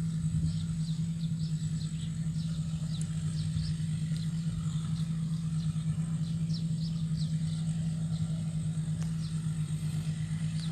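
Rice combine harvester's engine running at a steady drone with a strong low hum, with faint, quick high chirps over it.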